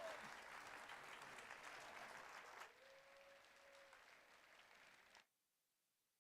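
Audience applauding, the clapping thinning out about two and a half seconds in and cutting off abruptly about five seconds in, leaving near silence.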